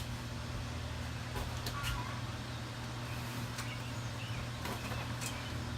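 Steady low hum with a few faint light clicks and short faint high chirps over it.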